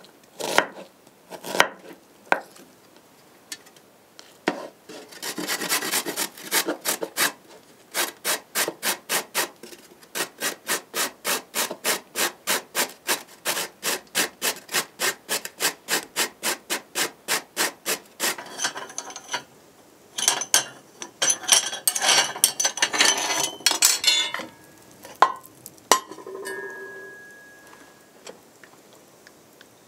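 A knife chops onion on a wooden board for a few strokes. Then a metal box grater is worked with steady, even scraping strokes, about three a second. Later the scraping gets faster and rougher, and a few clinks follow near the end.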